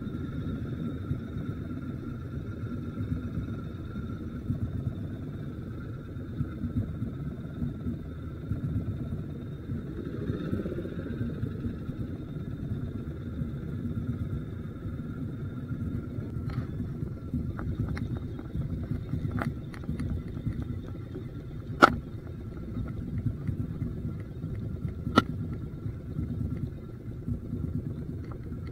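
An engine running steadily: a low rumble with a constant whine over it. Near the end, two sharp knocks about three seconds apart.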